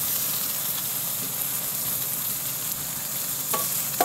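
Food sizzling steadily on a flat-top griddle, with two short clicks near the end.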